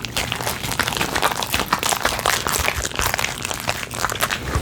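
Fluffy shaving-cream slime being mixed and worked by hand, giving a dense, continuous run of sticky clicks and wet pops.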